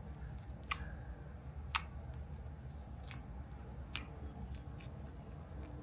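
Slime being squished and worked by hand, giving scattered small sharp pops and clicks a second or so apart over a faint low hum.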